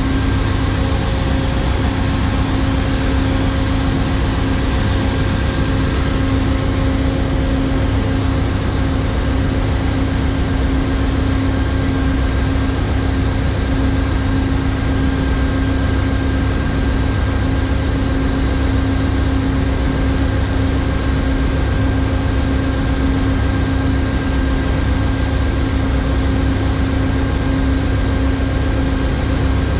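Diesel locomotive engine idling, a steady low rumble with a constant hum that does not change.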